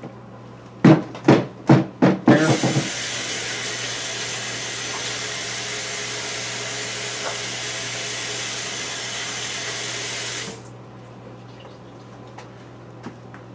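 A few short knocks, then a sink faucet comes on a couple of seconds in and runs steadily for about eight seconds while hands are washed, then is shut off suddenly.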